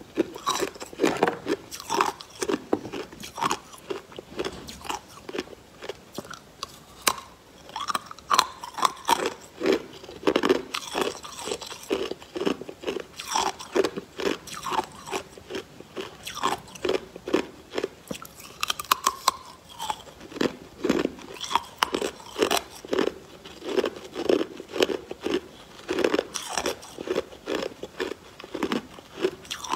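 Clear ice frozen on a wooden popsicle stick being bitten and chewed: hard ice crunching and cracking between the teeth, one or two bites a second, over and over.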